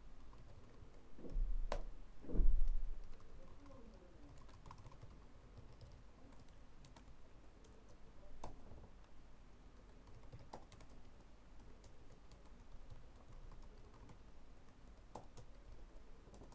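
Typing on a computer keyboard: a scattered run of light key clicks. Two low thumps come between one and three seconds in, the second the loudest.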